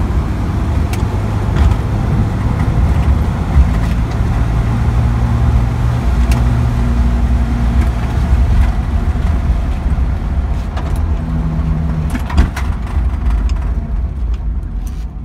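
Subaru Sambar kei truck's 360cc two-stroke two-cylinder engine running under way, loud in the cab, with a few sharp clicks and rattles. Near the end the sound starts to die down as the truck slows.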